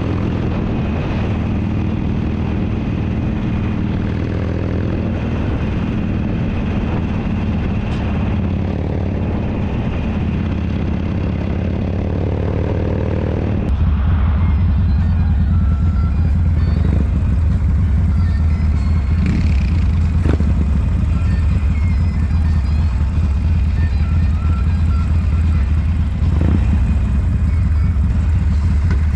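Motorcycle engine running while riding, a steady low rumble; about halfway through it changes abruptly to a louder, deeper rumble.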